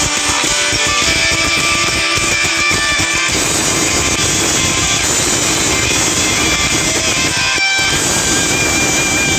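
A Nokia E72 ringtone: guitar-led music, with a short break about three-quarters of the way through.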